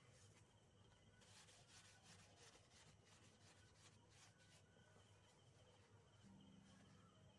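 Near silence, with faint rubbing from about a second in to past four seconds as writing is wiped off a small whiteboard.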